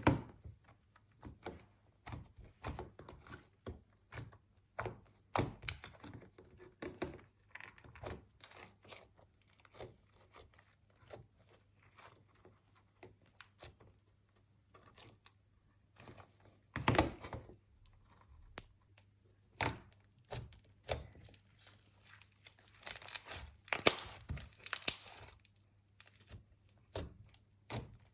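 Hands squishing, poking and stretching slime, giving irregular sticky clicks and pops, with a denser crackling stretch about three-quarters of the way through.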